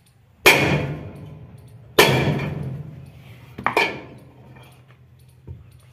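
Sledgehammer blows on a steel drift held against a combine harvester's pulley hub, knocking the pulley off its shaft. There are three heavy strikes, the third a quick double, and a light tap near the end. Each leaves a metallic ring that dies away over about a second.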